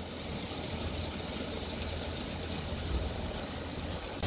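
Steady rushing of the River Severn in flood, fast brown water swirling and boiling past a flood barrier, with a low rumble underneath.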